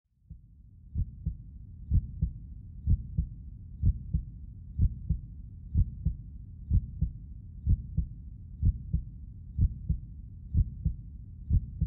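Heartbeat sound effect: low paired thumps, lub-dub, about once a second over a low rumble, fading in at the start.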